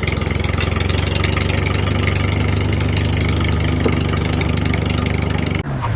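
Small engine of a DIY mini tractor running steadily at a constant speed, with a fast, even beat; the sound cuts off abruptly near the end.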